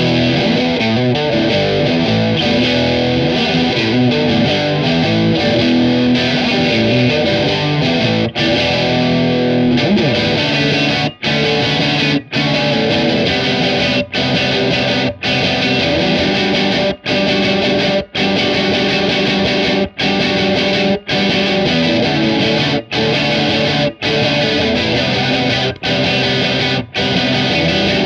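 Electric guitar (Fender Jaguar on its bridge pickup) playing a distorted riff through an overdrive pedal and a Small Clone-style chorus pedal, the Drunk Beaver JellyFish. It rings on steadily at first, then from about a third of the way in the riff stops short about once a second, leaving brief gaps.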